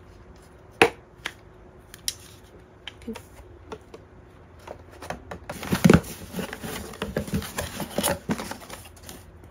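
Packaging being handled: a sharp click about a second in and a few light clicks and taps, then from about halfway a cardboard box being opened, its flaps scraping and the wrapping inside rustling, with a couple of thumps.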